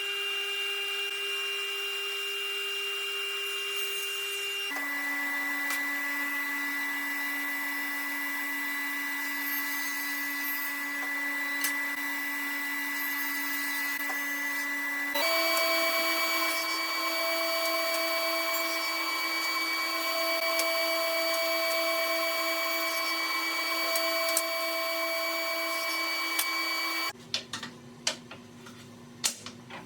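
Power saw running with a steady high whine, in three edited stretches, each at a different pitch. About three seconds before the end it gives way to a quieter run of sharp knocks.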